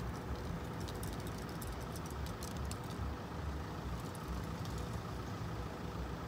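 Road vehicles idling in a low, steady engine rumble while traffic is held at a railway level crossing.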